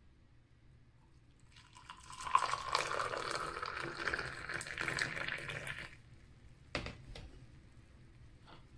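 Tea poured in a thin stream from a teapot held high into a small glass, splashing and frothing for about four seconds. After the pour stops, a sharp click and a couple of fainter ones, as of a glass touching the metal tray.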